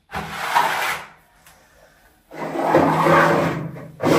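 A plastic stool scraping across a tiled floor, twice: a short scrape and then a longer one of nearly two seconds.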